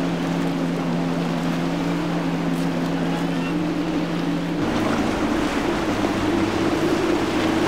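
Outboard motor running at speed over the rush of spray and wind. About halfway through, a larger center-console boat takes over, giving a different, deeper engine note.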